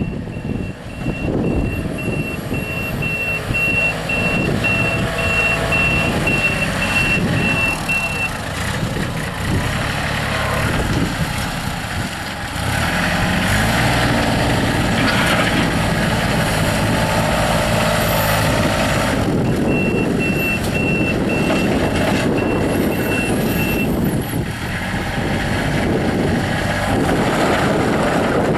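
Diesel engine of a Kubota L35 compact tractor loader backhoe running while the machine is driven, with its backup alarm beeping about twice a second, a sign that it is in reverse. The beeping runs for about eight seconds, stops, and comes back for about four seconds later on. The engine gets louder from about halfway through.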